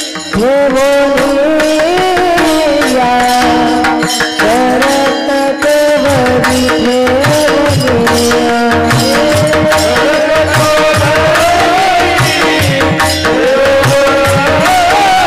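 A male voice sings a Varkari bhajan melody in a panchapadi, with ornamented, gliding phrases. It is accompanied by steady hand-drum strokes and the bright, continuous clash of small hand cymbals.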